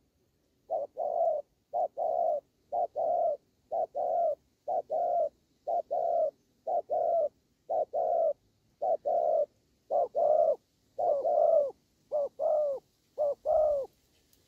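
Spotted dove cooing in short two- and three-note phrases, about one a second and thirteen in all, the last few a little longer. This is the repeated coo of a territorial face-off between a caged decoy dove and a wild dove.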